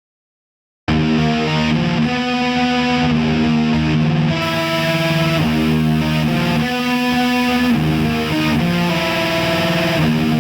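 Silence for about the first second, then heavily distorted electric guitar starts abruptly, playing a nu-metal riff of held notes that change every second or so.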